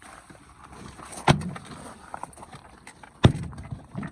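Two sharp knocks about two seconds apart, with lighter clicks and rustling between them, from handling the door trim panel while a wiring cord is unhooked.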